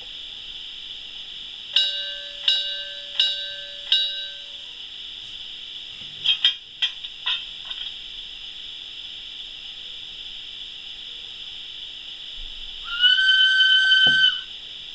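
Digital steam sounds from an ESU LokSound 3.5 decoder in a Regner 'Kathi' garden-railway steam locomotive model, played through its small capsule speaker. A steady steam hiss runs throughout. Over it come four short ringing tones near the start, a few brief sharp puffs around the middle, and a steam whistle held at one steady pitch for just over a second near the end.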